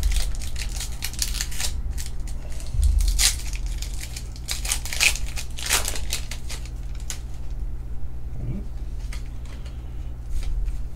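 Foil trading-card booster pack wrapper being torn open and crinkled, a run of sharp crackling rips through the first several seconds, then a few lighter crinkles as the cards are slid out.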